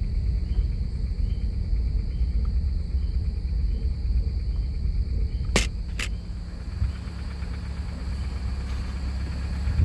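Low, steady rumble of a vehicle's engine running, with insects chirping steadily in the background. Two sharp clicks come close together a little past halfway.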